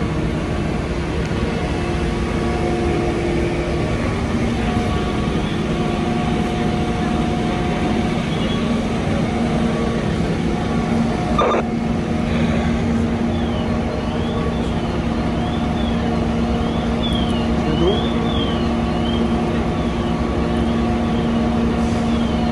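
Steady low rumble of idling fire apparatus diesel engines at a working fire, with a faint high tone rising and falling about twice a second from a little past halfway.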